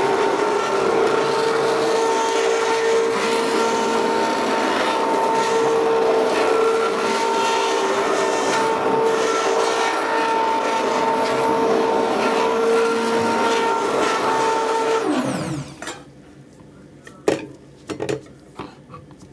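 Stick blender running steadily in a crock of liquid soap batter, mixing it toward trace. About fifteen seconds in it switches off and winds down with a falling pitch, followed by a few sharp knocks.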